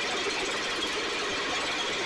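STIHL backpack blower's two-stroke engine running at a steady speed with a fast, even rattle. It is running lean and needs a touch of choke now and then to keep going, which the owner puts down to the carburetor.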